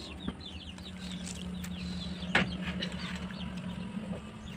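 Birds chirping over and over in short, quick, falling calls, with a faint steady hum beneath and a single sharp tap about halfway through.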